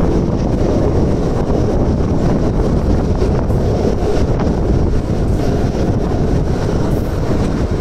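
Heavy wind rush buffeting the microphone at the open door of a Mumbai suburban electric local train running at speed, over the steady rumble of its wheels on the track.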